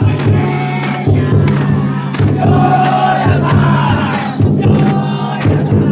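Taiko drum inside a Banshū-style festival float beaten in a steady rhythm, with many bearers shouting a chant in unison over it.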